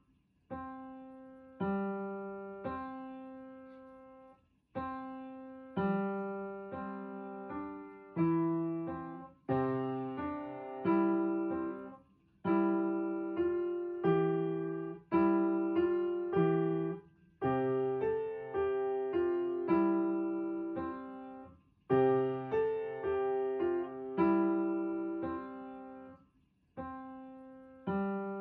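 Background music: a solo piano piece, notes and chords struck and left to fade, in phrases of a few seconds each.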